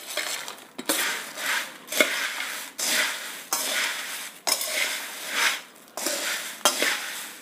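Roasted puffed rice (bhajke murmure) and fried peanuts and cashews being tossed in a steel bowl with a perforated steel spoon: repeated crisp rustling strokes, one or two a second, with a few sharp clinks of spoon on steel.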